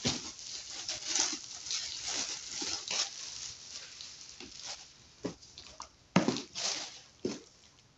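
Thin plastic shrink-wrap crinkling and rustling as it is stripped off a cardboard box holding an LED light panel. In the second half come a few sharp knocks as the cardboard box is handled and turned over.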